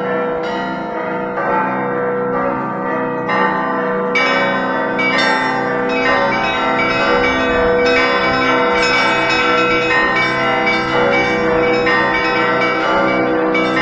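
Russian Orthodox church bells played by a single bell ringer in a continuous peal. Many bells are struck in a fast, steady pattern over the long-ringing tones of the larger bells.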